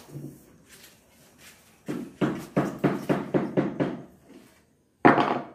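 A fast run of hammer knocks, about four blows a second for two seconds, followed by a louder, harsher burst of noise near the end.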